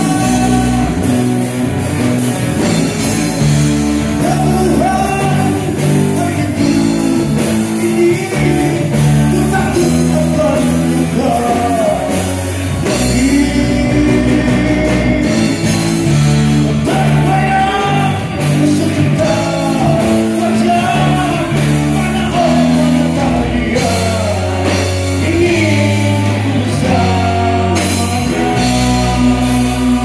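Live rock band playing a song with a man singing, over electric guitars, keyboard and a drum kit.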